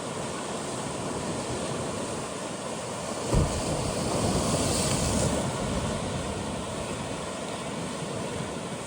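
Atlantic waves washing among coastal rocks: a steady wash, then a sudden low thump about a third of the way in followed by a louder surge of hissing surf that dies back down.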